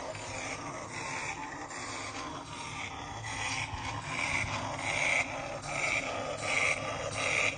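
Skunk hissing: a run of breathy, rasping hisses coming a little more than once a second, getting louder in the second half.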